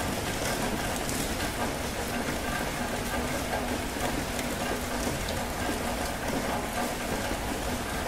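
Steady rain falling and splashing on surfaces, with occasional sharper drops standing out.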